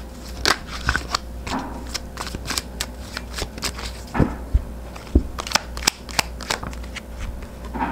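A tarot deck being shuffled by hand: a run of quick, irregular card flicks and clicks, with a couple of dull knocks midway.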